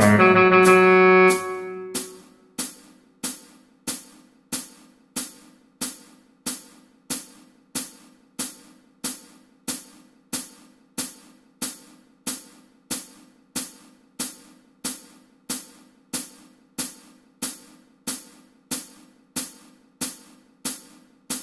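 A pop backing track ends on a held chord about a second and a half in. After that a click track ticks on every beat, about one and a half clicks a second, over a faint steady low tone.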